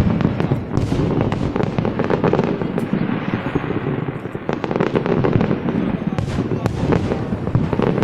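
Fireworks display: a dense, continuous run of bangs and crackling, with many sharp reports overlapping and a brief lull about four seconds in.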